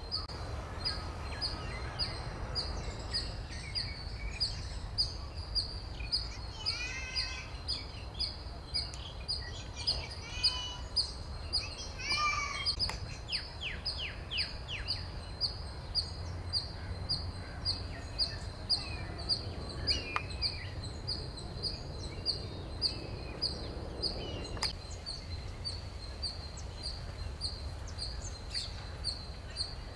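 Outdoor wildlife ambience: a high-pitched chirp repeated evenly about two to three times a second throughout, with scattered bird calls and chirps, over a low rumble.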